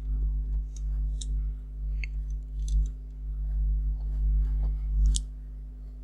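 A handful of scattered clicks from a computer keyboard and mouse in use, the sharpest about five seconds in, over a steady low hum.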